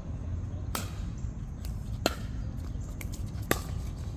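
Three sharp knocks, each with a brief ring, about a second and a half apart, over a steady low rumble.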